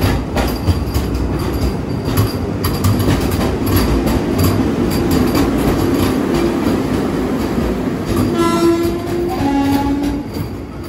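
Vande Bharat Express electric train set pulling out alongside, its wheels clicking steadily over the rail joints with a running rumble. About eight seconds in, a train horn sounds two notes in succession, the second lower.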